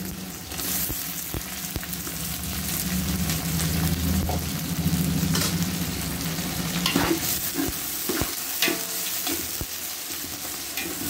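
Mutton pieces with bone and fat sizzling as they fry in hot oil with onions in a large pot. A ladle stirs them, with scattered knocks and scrapes against the pot in the second half.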